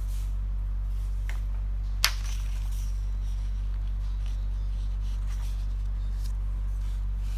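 Sheets of paper being turned over on a binder-clipped pad: faint rustles, with a sharp click about two seconds in, over a steady low electrical hum.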